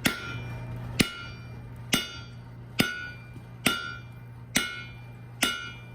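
Blacksmith's hammer striking hot iron on an anvil: seven evenly spaced blows, a little under one a second, each with a short metallic ring. A steady low hum runs underneath.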